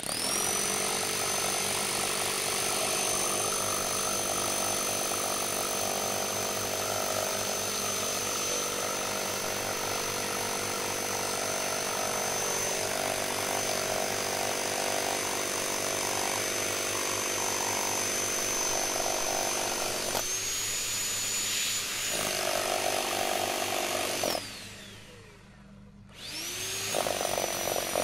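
Corded rotary hammer set to hammer-only, pounding a ground rod into the soil. It runs steadily, stops for about two seconds roughly three-quarters of the way through, then starts hammering again near the end.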